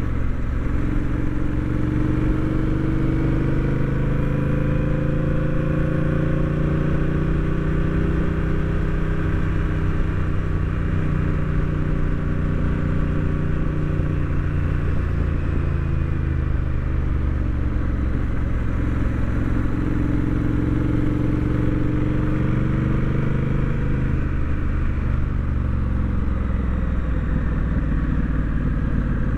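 Honda Rebel 1100 DCT motorcycle's parallel-twin engine and exhaust under way, the engine note rising and falling slowly with speed: it drops off about halfway through as the bike slows, picks up again, then drops again near the end.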